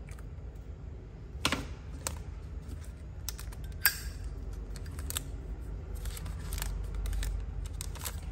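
Sharp metallic clicks and snaps of a Zippo lighter being handled, its lid clicking open and shut, with the sharpest click a little under four seconds in and a quick run of clicks near the end.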